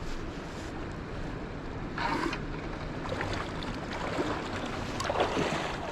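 Steady rush of flowing river water with wind on the microphone, and a brief louder surge of noise about two seconds in.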